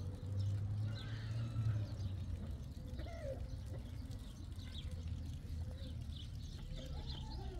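Chickens clucking now and then, with small birds chirping, over a low steady rumble.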